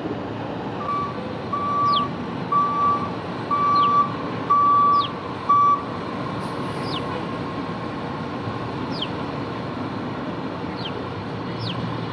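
A vehicle's reversing alarm beeping about six times at a steady pitch, roughly once a second, then stopping, over steady street and traffic noise.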